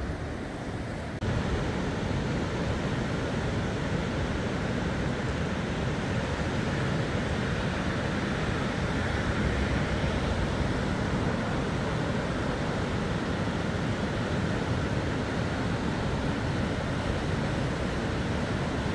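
Floodwater rushing and churning through a river weir, a steady noisy rush of water. About a second in, the sound jumps louder and then holds steady.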